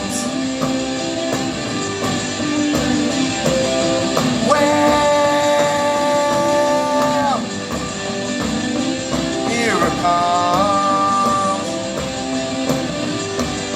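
Live rock band playing, with electric guitar holding long, bending notes over a steady beat.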